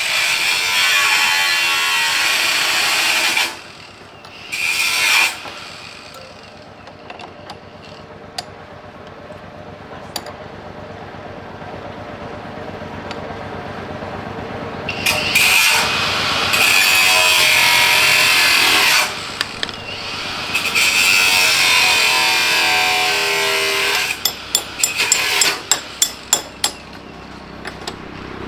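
A power tool running in several bursts of a few seconds each, its motor pitch wavering. In the pauses there are light clicks and the clatter of hand tools on metal parts.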